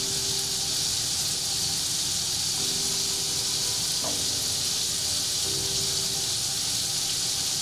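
Sea scallops searing in butter in a hot skillet: a steady, even sizzle.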